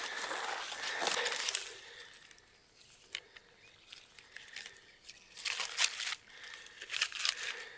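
Dry oak leaves rustling and crackling as a twig of them is handled: a steady rustle for about the first two seconds, quieter after, then a cluster of sharp crackles near the end.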